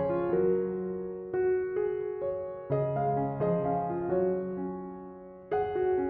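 Background piano music: gentle notes and chords struck one after another and left to ring, with a louder chord about five and a half seconds in.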